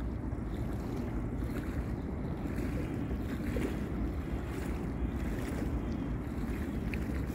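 Wind rumbling steadily on the microphone at the edge of a wide river, with faint splashes of river water lapping at the bank.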